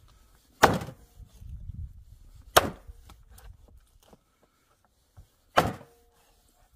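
Three heavy chopping strikes, about two and three seconds apart, each followed by a short ring.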